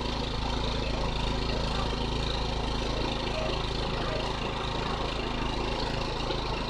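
Honda EX750 portable generator engine running at a steady speed while powering a lit work lamp.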